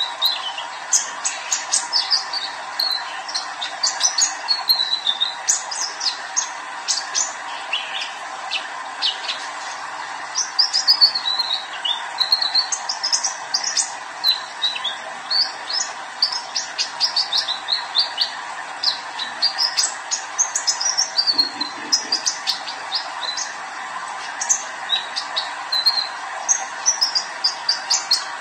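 Young male sunbird of the kind kept in Indonesia as 'kolibri ninja' singing continuously: a rapid stream of high, thin chirps and short sweeping trills with hardly a pause.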